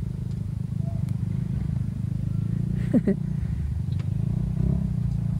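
Motorcycle engine running at cruising speed with steady wind and road rumble while riding, and one brief louder sound about three seconds in.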